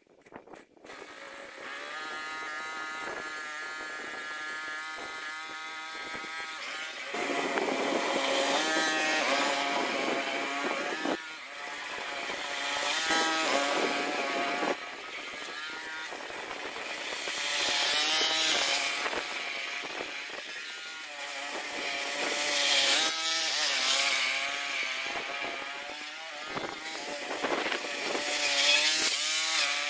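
Small petrol engine of a cylinder lawn mower starting about a second in and running steadily, then from about seven seconds working under load as it cuts grass, its pitch wavering. It grows louder and quieter in turn as the mower moves up and down the lawn.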